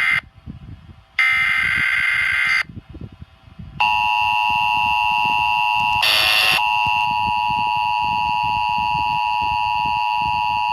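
Emergency Alert System (EAS) tones received over radio. The first is the end of one SAME header data burst, and about a second in comes a second burst of about a second and a half. From about four seconds in, the two-tone attention signal sounds steadily, and a half-second burst of static cuts across it about six seconds in.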